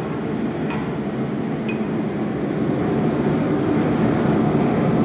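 Steady low roar of blacksmith-shop equipment running while steel heats, with two light metallic clinks about a second apart near the start.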